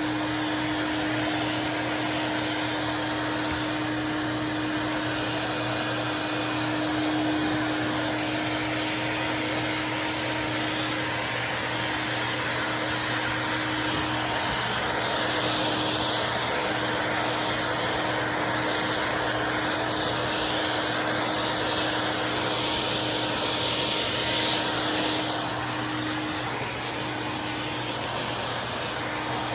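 Hoover Swingette vacuum cleaner running steadily, its motor holding a steady tone under the rush of air. About halfway through, a stronger high hiss of air joins in for roughly ten seconds, then eases off.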